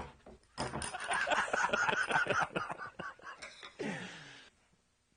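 A man laughing in a run of quick bursts, followed near the end by a short voice sound that falls in pitch.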